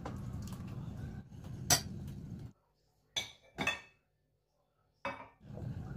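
Kitchenware clinks and knocks: one sharp knock a little under two seconds in over a low steady hum, then a few short clinks of dishes and utensils in a quiet stretch before the hum returns.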